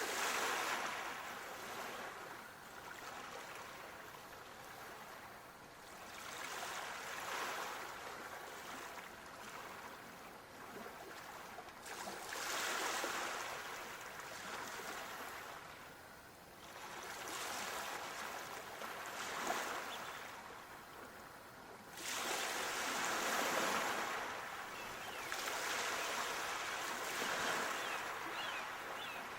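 Waves washing in on a shore: a swell of surf about every five to six seconds, some breaking suddenly, then draining away. A few faint high chirps near the end.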